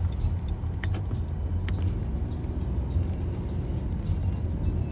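Car's road and engine noise heard from inside the cabin while driving: a steady low rumble, with a few faint clicks.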